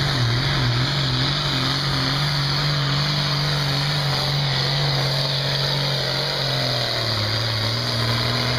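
Diesel pulling tractor running flat out under load as it drags the weight sled down the track, a steady engine note that dips slightly in pitch about seven seconds in.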